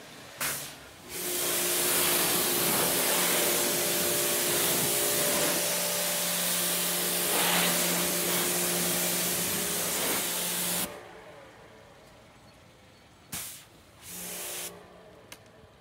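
Pressure washer spraying water: a steady loud hiss with a hum beneath it for about ten seconds, cutting off suddenly, then two short spurts near the end.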